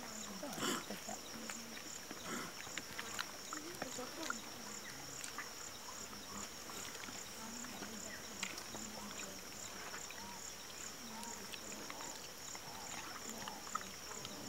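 Steady high-pitched insect chorus with an even pulse of about two beats a second, under scattered soft clicks and faint low voices.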